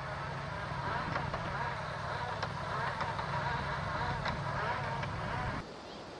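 Exploratory gas drilling rig running: a steady, loud machine drone with a low rumble and a steady hum, with occasional sharp knocks. It cuts off suddenly near the end.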